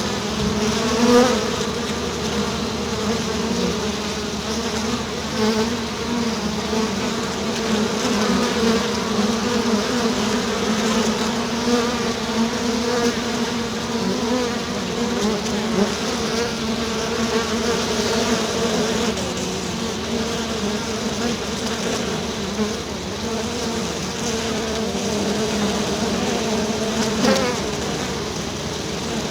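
A swarm of honeybees buzzing continuously in a dense, wavering drone, with a couple of brief louder swells as bees pass close.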